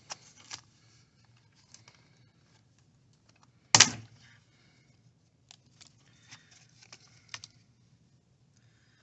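Plastic clicks and taps from a laptop's keyboard deck being worked free of its base and lifted off, with one loud sharp click about four seconds in and a few lighter clicks later.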